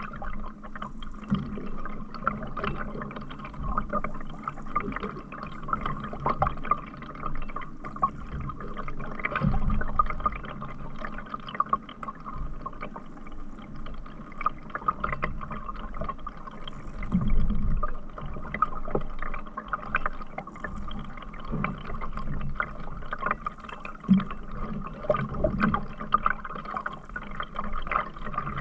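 Water splashing and dripping close by a canoe on a river, with many small drips and irregular louder splashes.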